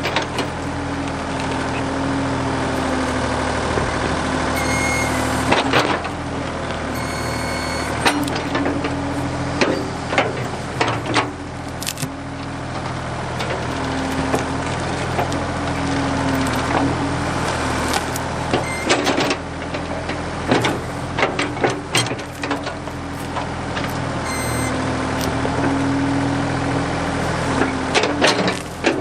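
Ford 555 backhoe's engine running steadily, its pitch swelling and dipping slightly under load, with many sharp cracks and snaps of wood breaking as brush and trees are cleared.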